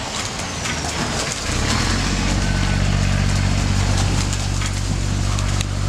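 Continuous splashing and slapping of a dense crowd of feeding fish thrashing at the water's surface. A boat engine's low, steady idle comes in about a second and a half in and runs under the splashing.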